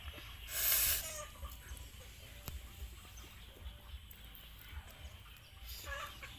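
A brief noisy tear about half a second in as a charcoal-grilled eel is pulled apart by hand, over a low background with chickens clucking faintly.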